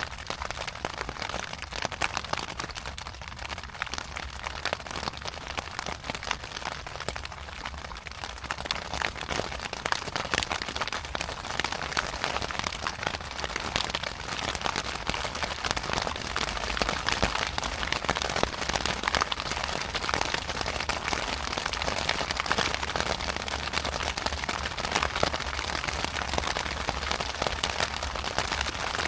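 Rain falling steadily as a dense patter of drops, a little heavier after about ten seconds.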